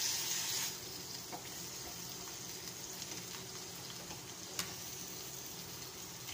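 Canned tuna, onions and garlic sizzling in oil in a frying pan over a high gas flame while being stirred with a spatula. The sizzle is loudest at the start, then settles to a steady hiss, with one sharp click about four and a half seconds in.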